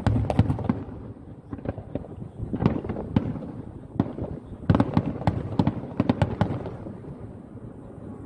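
Aerial firework shells bursting, a rapid run of sharp bangs in several clusters, dying away about seven seconds in.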